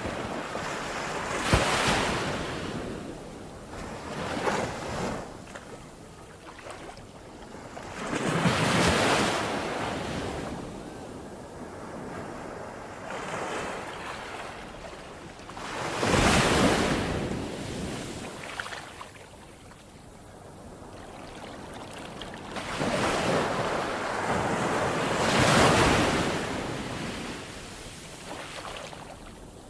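Ocean waves breaking and washing up the shore, each surge of surf swelling and fading every few seconds. The loudest breaks come near the start, around the middle and late on.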